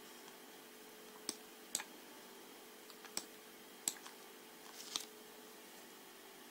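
A handful of quiet computer mouse and keyboard clicks, about five sharp separate clicks spread out over a faint steady hum.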